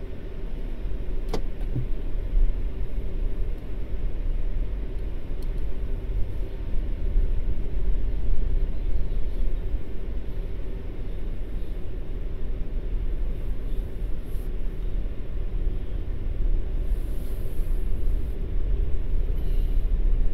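A car driving, with a steady low rumble of engine and road noise heard inside the cabin. One sharp click comes just over a second in.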